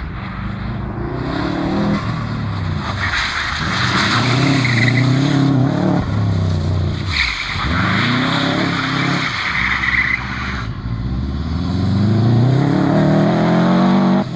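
Subaru Impreza rally car's flat-four engine revving hard, its pitch climbing and dropping several times as the car slides sideways through a turn on winter tyres. Twice, a long hiss of tyres skidding on the damp asphalt runs with it.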